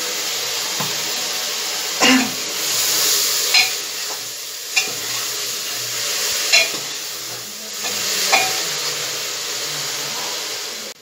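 Potato and aubergine pieces frying in an open pressure cooker with a steady sizzle, while a metal ladle stirs them and knocks sharply against the pot five times.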